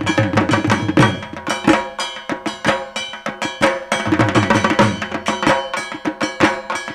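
Dhak, the Bengali barrel drum, beaten with sticks in a fast, unbroken rhythm, with a metallic ringing clang running along with the drumming.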